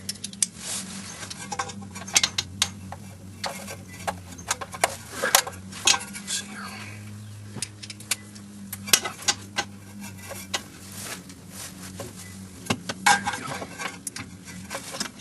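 Irregular metallic clicks and clinks of a 12 mm wrench working bolts loose, with a steady low hum underneath.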